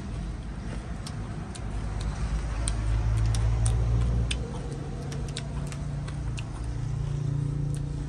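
A low motor rumble that swells twice, with small sharp clicks over it from a person chewing food close by.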